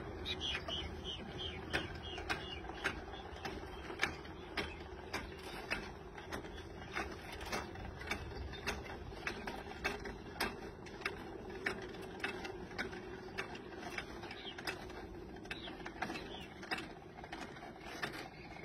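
Hand-crank winch on a purple martin gourd-rack pole, its ratchet clicking steadily a little under twice a second as it is wound to lower the rack of nesting gourds.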